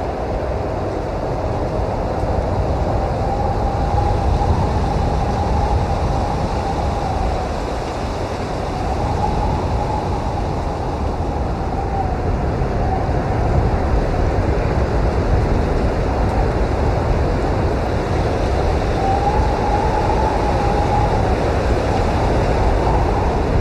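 Blizzard wind blowing hard and steadily, a deep rumbling rush, with a faint whistling tone that swells and fades three times.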